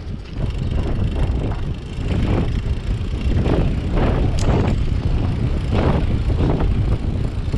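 Wind buffeting the microphone of a road bike being ridden along a paved lane, a steady low rumble, with a run of short hissing swells about once a second and one sharp click about halfway through.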